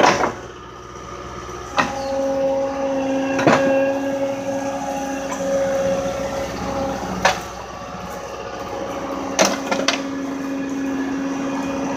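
Skid steer loader's engine running steadily close by, with several sharp knocks over it: about five single knocks and a quick run of three near the end.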